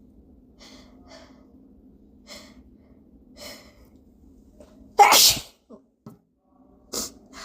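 A person's hitching breaths, four faint short catches, building up to one loud sneeze about five seconds in, followed by a shorter, quieter burst near the end.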